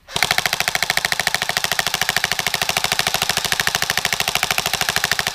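Airsoft AK rifle firing on full automatic: a long, rapid, even stream of shots that starts suddenly.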